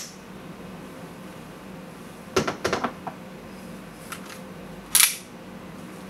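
KJ Works full-metal M1911A1 CO2 gas blowback airsoft pistol: a quick cluster of metallic clacks about two and a half seconds in, then one sharp shot with the slide's blowback about five seconds in.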